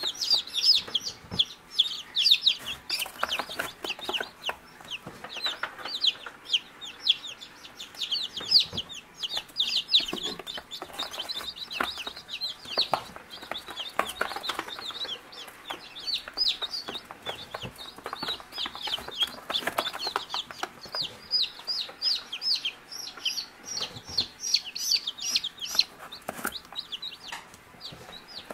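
A brood of newly hatched chicks peeping nonstop: many rapid, high-pitched chirps, each falling in pitch, several a second and overlapping, with scattered knocks of handling.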